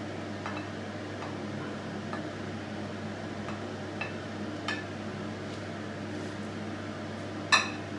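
A metal spatula taps and scrapes against a ceramic plate and a small frying pan as scrambled egg is pushed into noodles and stirred. It makes a few light clicks, with a sharper one near the end, over a steady low hum.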